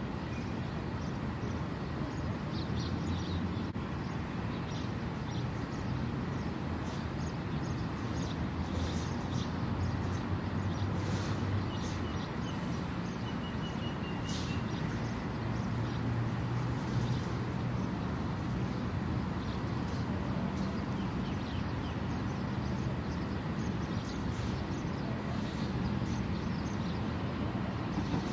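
Outdoor ambience: a steady low rumble like distant traffic, with scattered short bird chirps over it.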